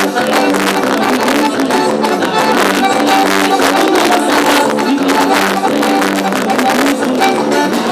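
Festa junina band music: sustained melody over a steady percussive beat.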